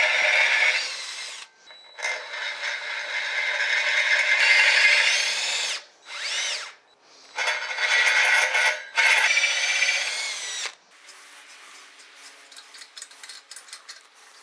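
Power drill with a 5/16-inch bit drilling out holes in a metal foot, run in four bursts with short stops, its pitch winding up and down at the stops. The last few seconds are quieter clicks and handling.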